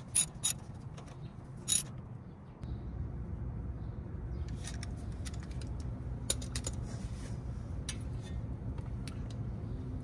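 A few sharp metallic clicks in the first two seconds as a socket and extension run in the wheel speed sensor's retaining bolt. Then a steady low rumble with scattered light clicks and rattles as the sensor cable is handled.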